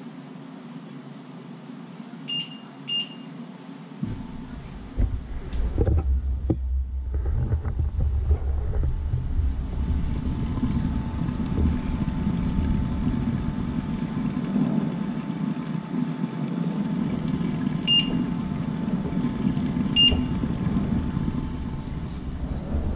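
Electric cooktop's touch controls beeping as settings are pressed: two short high beeps near the start and two more near the end. A steady low rumble starts about four seconds in and carries on underneath, with a few knocks around five to six seconds.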